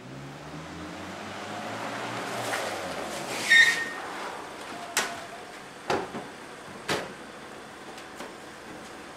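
Mitsubishi Pajero SUV's engine running as it drives up and stops, with a brief squeal as it halts about three and a half seconds in. Then its doors clunk open and shut several times.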